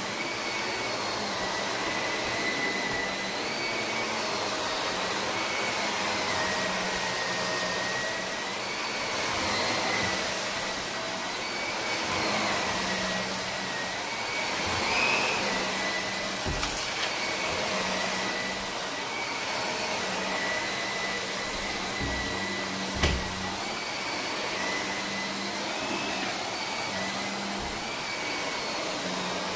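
Shark upright vacuum cleaner running on carpet, a steady motor whine whose pitch wavers slightly as it is pushed back and forth. A few sharp clicks come through in the second half, the loudest about two-thirds of the way in.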